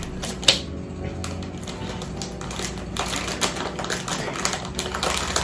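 Plastic snack packaging crinkling and rustling as it is handled, in quick irregular clicks with a sharp crackle about half a second in and busier crinkling near the end.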